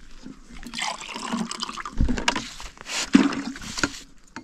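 Water splashing and trickling in irregular bursts, with a few knocks about two and three seconds in.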